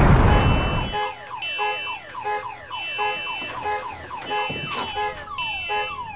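The tail of a loud boom dies away in the first second, then a car alarm sounds in a fast repeating cycle of falling whoops and steady beeps, about three a second.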